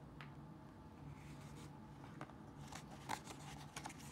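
Faint rustling and soft rubbing of a picture book's paper pages as a hand takes hold of a page to turn it, with a few small clicks in the second half.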